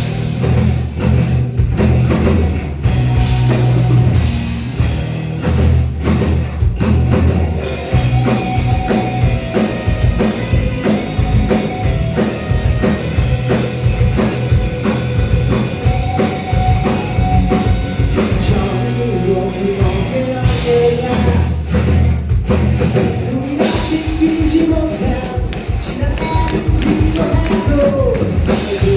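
Live rock band playing loud, with a steady drum beat and heavy bass; about eight seconds in, the full band comes in denser, with rapid drum hits.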